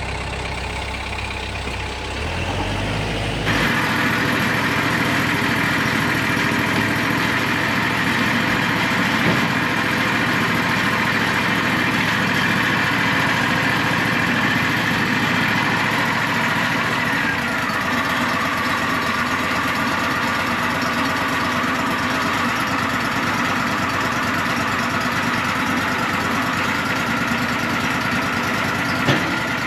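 Engine running steadily at a low, even speed, with wind noise over it. The sound changes abruptly about three and a half seconds in.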